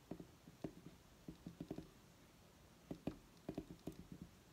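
Quiet, irregular small clicks and taps, some in quick runs, from a mini hot glue gun being squeezed and worked against rope on a foil-covered bottle while glue is laid down.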